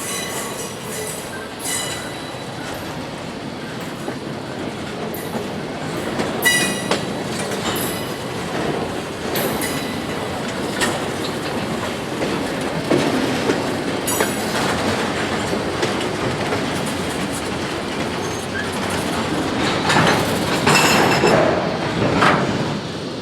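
Freight train rolling by: steel wheels running over the rails with sharp clicks at the rail joints and brief high wheel squeals, growing louder about twenty seconds in.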